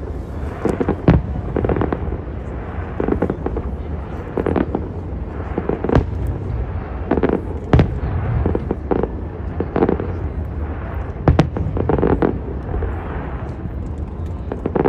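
Aerial fireworks bursting in an irregular series of sharp bangs, roughly one every second, some much louder than others, over a steady low rumble.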